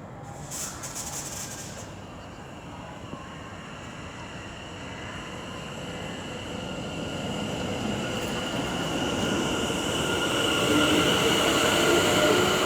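West Midlands Railway Class 730 electric multiple unit pulling away from the platform, a steady high whine and running noise growing steadily louder as it gathers speed.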